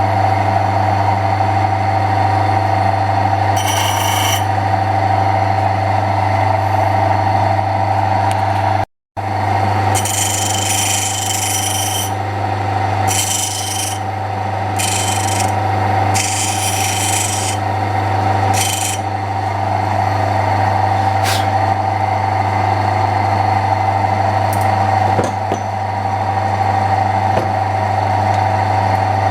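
Electric drill motor running steadily while a textolite roller wheel is cut, with several short rasping spells of cutting about ten to nineteen seconds in. The sound breaks off briefly about nine seconds in.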